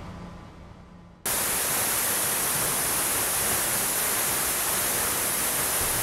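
Waterfall roaring: a steady rush of falling water crashing onto rocks. It cuts in suddenly about a second in, after the end of a fading music sting.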